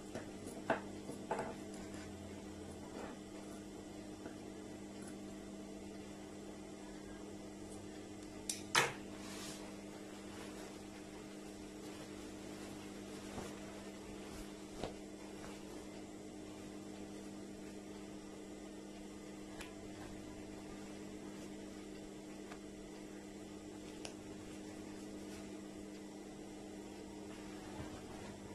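Steady electric hum, with a few light clicks in the first two seconds and a sharper click about nine seconds in.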